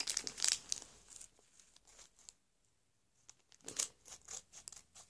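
Foil Pokémon booster pack wrapper crinkling and tearing as it is opened by hand, in short crackly bursts during the first second and again near the end, with a quiet pause between.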